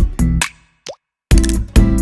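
Background music of rhythmic strummed guitar chords that cuts out about half a second in. A short plop-like blip sounds in the gap, and the strumming starts again.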